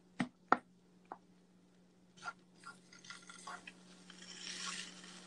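Spatula chopping tofu scramble in a frying pan: two sharp taps of the spatula on the pan and a fainter one, then scraping and stirring in the pan that grows louder near the end. A steady low hum runs underneath.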